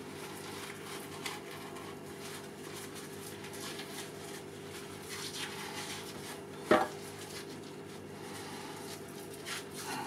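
Paper towel rustling and the membrane tearing as it is pulled off the back of a rack of pork spare ribs on a wooden chopping board, over a steady low hum. One short, louder sound stands out about two-thirds of the way in.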